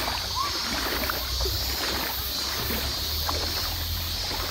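Shallow river water running over pebbles: a steady rushing with a low rumble underneath.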